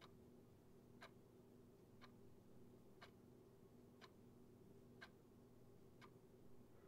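Faint clock ticking, one tick about every second, over a low steady hum.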